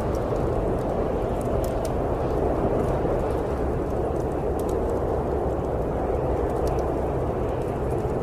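Steady storm wind of a snowstorm, with the small scattered pops of a crackling wood fire.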